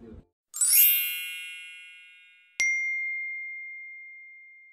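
A sweep of bright chime tones rings out and fades. About two and a half seconds in comes a single clear ding that rings on and slowly fades. Both are sound effects added in editing.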